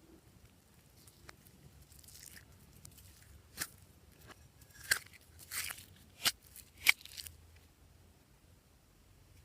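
Glossy slime being squeezed and stretched by hand, giving a string of sharp, short wet clicks and pops in the middle few seconds, with faint handling noise in between.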